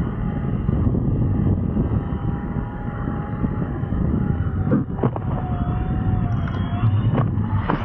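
Flite Ultra eFoil in flight: a steady rush of wind and water with a thin electric motor whine that dips a little in pitch past halfway, and a few short knocks near the end.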